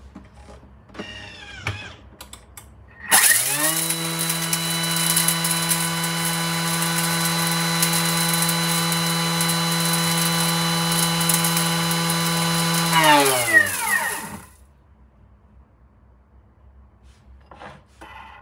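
Electric food processor motor spinning up about three seconds in and running at a steady high speed for about ten seconds, grinding dry toasted Sichuan pepper flakes, then winding down with a falling pitch. Faint clicks and handling before it starts.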